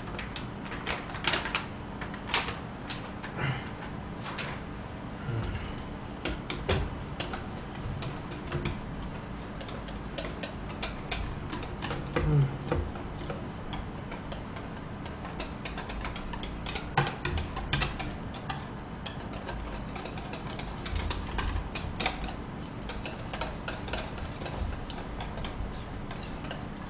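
Wire whisk stirring pancake batter in a stainless steel mixing bowl: irregular light clicks of the wires against the metal, keeping on throughout.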